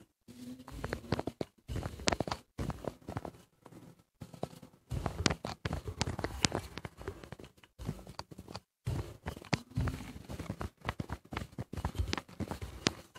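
Rolling pin rolling out a paneer-stuffed kulcha: a rumble of the pin over the dough with irregular light knocks and taps of the pin and hand on the counter.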